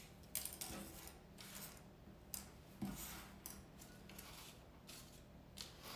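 Faint handling noise of small cardstock cake-topper pieces on sticks being laid out by hand on a wooden table: a few light clicks and taps, with soft paper rustling, over a low steady hum.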